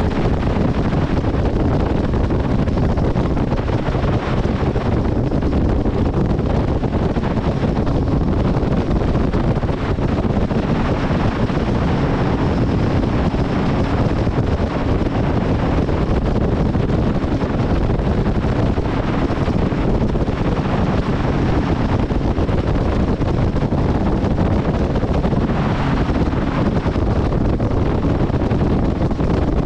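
Steady wind rushing over the microphone of a Nitro bass boat under way, with its Mercury outboard running and the hull moving through the water beneath it.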